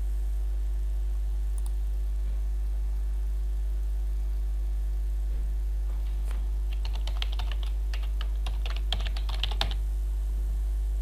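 Typing on a computer keyboard: a quick run of keystrokes starting about six seconds in and lasting some three and a half seconds, over a steady low hum.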